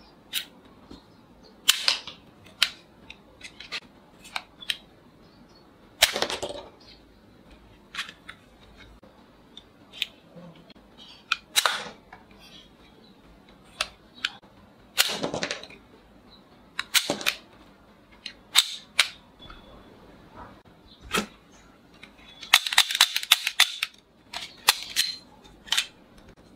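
Plastic toy revolver being cocked and fired again and again, with sharp snaps from the spring-fired rubber bullets between lighter hammer and trigger clicks. Near the end comes a quick rattling run of clicks as the cylinder is handled.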